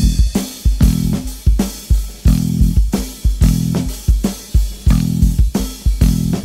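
Rock music with electric guitar, bass guitar and a steady drum beat, about two and a half hits a second.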